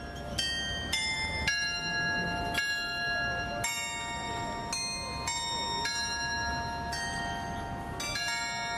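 Clock-tower bells playing a slow tune, about a dozen struck notes, each ringing on under the next, over a faint low city hum.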